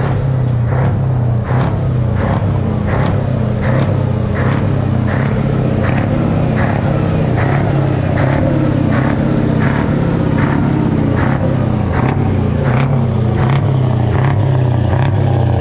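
Large truck's diesel engine running steadily at idle, with a regular pulse a little faster than once a second.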